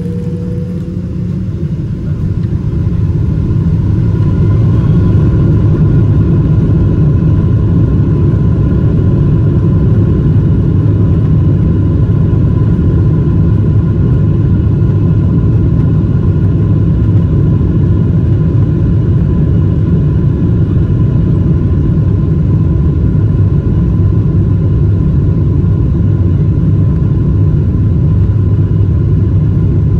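Boeing 777-200's jet engines spooling up to takeoff thrust, heard from inside the cabin: a whine rising in pitch and the noise building over the first few seconds, then a loud steady rumble through the takeoff roll.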